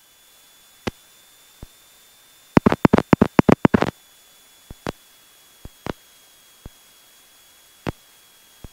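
Sharp clicks on the Cessna 172's radio and intercom audio feed over a faint steady hiss and thin high whine. A fast run of about ten clicks comes about three seconds in, with single clicks scattered before and after.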